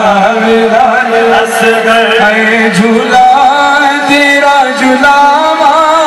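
Male nohay (Shia lament) chanted through a microphone, in long, drawn-out wavering notes. A steady low held note lies under the first half, and higher sung lines take over about halfway through.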